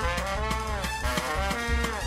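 Background music with a steady beat over a melody line.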